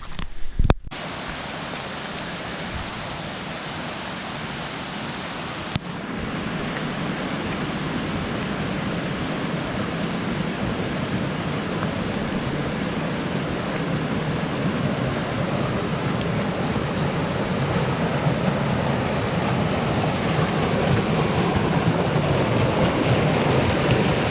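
A rain-fed mountain stream rushing, a steady noise of running water that grows slowly louder. A sharp knock comes just under a second in, and a faint click about six seconds in.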